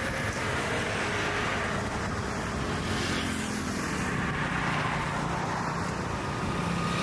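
City road traffic: a steady wash of vehicles running and passing, with one vehicle's low engine hum coming in about halfway through.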